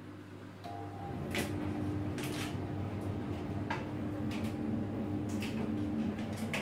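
Steady machine hum from a running laundry appliance, with a few sharp knocks and clatters as laundry and a plastic basket are handled.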